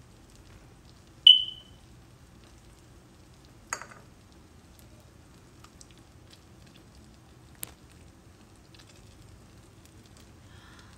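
Egg and potato omelette batter sizzling faintly in a nonstick frying pan on low heat. About a second in there is a loud, bright ringing clink that dies away quickly, and a shorter knock and a sharp click follow a few seconds apart.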